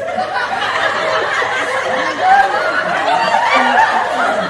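Several people snickering and laughing together, many voices overlapping.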